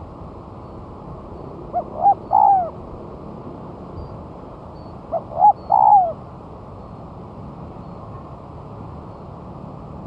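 Spotted dove cooing: two three-note calls, each two short coos and a longer final one, about three seconds apart, over a steady hiss.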